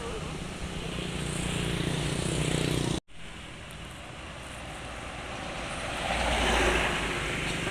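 Road traffic: a vehicle engine hums and grows louder, the sound cuts out abruptly about three seconds in, then another vehicle passes, loudest just before the end.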